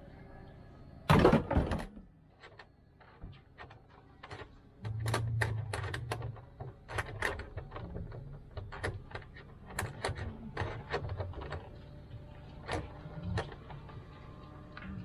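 Irregular clicks and knocks from a moored Windrider 17 trimaran and its lines while the mooring line is handled and untied at the dock, with one loud bump about a second in.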